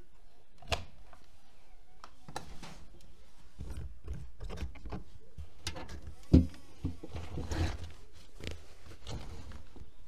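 Privileg Dynamic 6610 CN front-loading washing machine with its drum turning the laundry: a low rumble with irregular knocks and clunks, and one loud thump about six seconds in.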